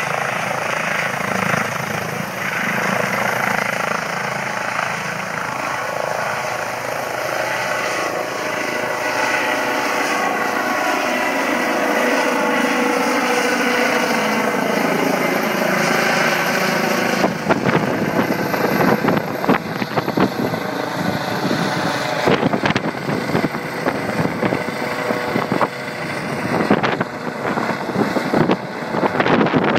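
An ADAC Eurocopter EC135 rescue helicopter's twin turbines and rotor run at full power as it lifts off and climbs overhead; its tones slide down in pitch as it moves away. From about halfway through, the rotor downwash blasts gusty wind noise onto the microphone.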